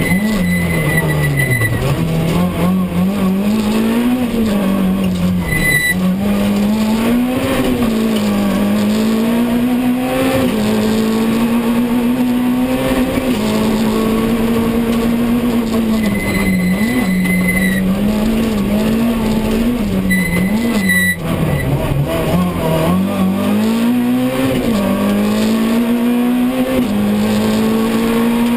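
Citroën C2 R2 rally car's 1.6-litre four-cylinder engine, heard from inside the cabin, revving hard and dropping sharply again and again through gear changes and braking at full stage pace. Four brief high squeals cut through it.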